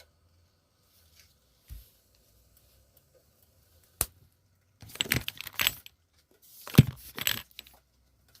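Metal kitchen utensils clinking and clattering: a single sharp click about four seconds in, then two bursts of rattling clinks.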